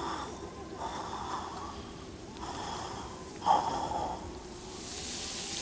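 Cartoon lizard's exaggerated, wheezy panting: a few separate breaths, one sharper gasp about halfway through, as he lies limp with his tongue out from the heat. A rising whoosh near the end.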